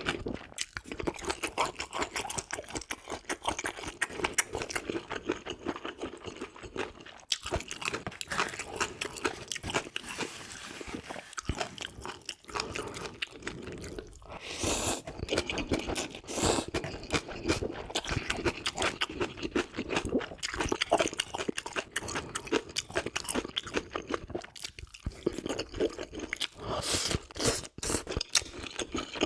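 Close-miked chewing and crunching of food, a dense run of quick mouth clicks and crunches, louder for a moment around the middle and again near the end.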